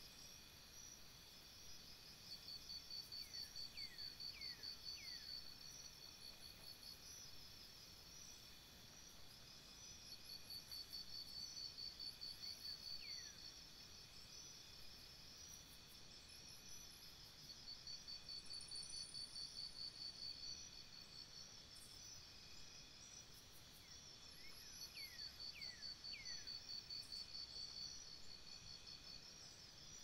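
Faint chorus of insects chirping in pulsing bouts a few seconds long, about three pulses a second, over steady high insect trills. A bird gives a few quick falling whistles three times.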